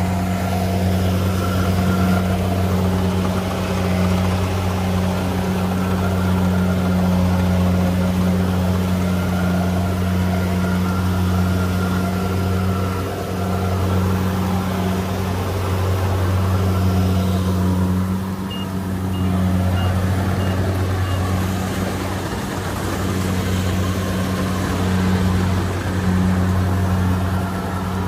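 Engine of a farm machine running steadily at low speed as it works a field, a constant low hum that dips briefly a couple of times.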